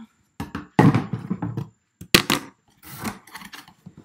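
Large cardboard shipping box being handled and opened: irregular scraping and rustling of cardboard, with a sharp snap a little past two seconds in.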